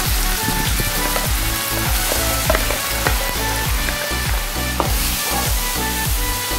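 Chopped red chillies and petai beans sizzling in hot oil in a wok, with a wooden spatula stirring them near the end. Background music with a steady beat plays underneath.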